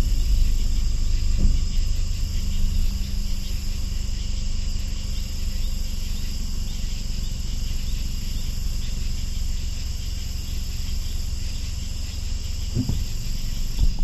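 Steady chorus of crickets and katydids over the low rumble of a slowly moving car. Around the middle come one or two short, faint high peeps: nocturnal flight calls of migrating songbirds.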